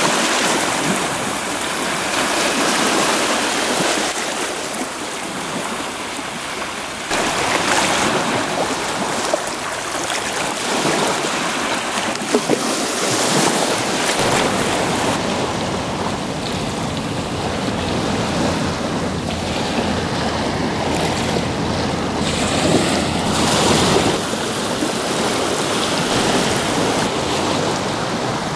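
Small sea waves washing onto the shore: a steady rush of surf that changes abruptly a few times.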